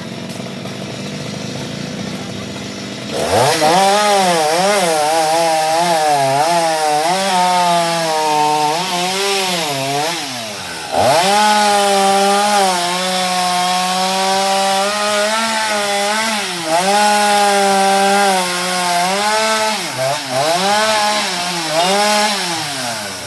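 Stihl MS 230 two-stroke chainsaw idling, then opened to full throttle about three seconds in. Its pitch sags and recovers repeatedly, as it does when the chain is under load in wood. The revs drop briefly around ten seconds, climb again a second later, and fall off near the end.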